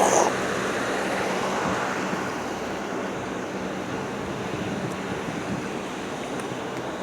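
Air-conditioning units running outdoors: a steady fan rush with a faint low hum, getting slightly quieter over the seconds.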